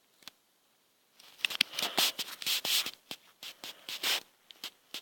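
A rapid, irregular run of light clicks and taps with brief scrapes, starting about a second in and lasting about three seconds, then a few scattered clicks.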